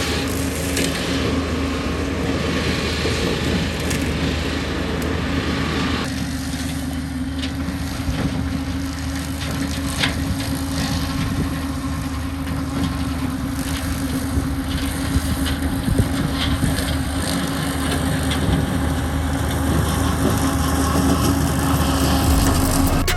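Engine of a working machine running steadily at a constant speed, with scattered sharp cracks and knocks over it.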